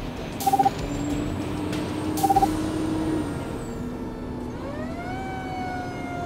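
A fire truck heard from inside its cab, its engine running under a steady drone. Two short, stuttering horn blasts come about half a second and two seconds in. About four and a half seconds in, the siren winds up, then begins a slow falling wail, warning traffic to clear the way.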